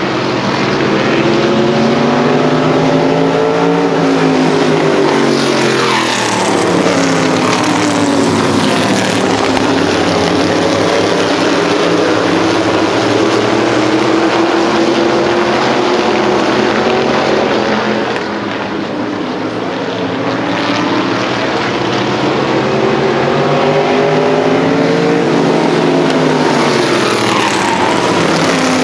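Engines of several Groundpounder vintage-modified race cars running at racing speed around a short oval, their pitch rising and falling as the pack passes and goes through the turns. The sound drops off briefly about two-thirds of the way through, then swells again.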